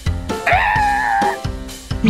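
A cartoon character's high, wavering whimper, held for about a second, over background music with a steady beat.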